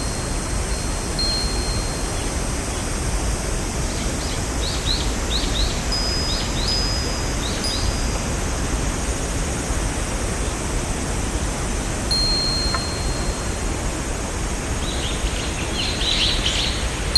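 Songbirds chirping and whistling over a steady rushing hiss. A run of quick chirps comes about four seconds in and another near the end, with high held whistled notes in between.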